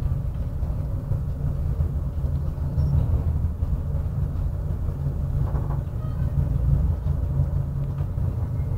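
Steady low rumble heard inside an aerial ropeway cable car cabin as it travels along its haul cable.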